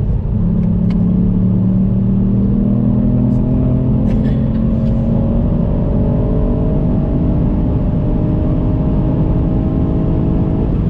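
Ford Fiesta ST's 1.5-litre three-cylinder turbo engine, fitted with an induction kit, pulling under load inside the cabin, its pitch climbing slowly as the revs rise, over steady road noise.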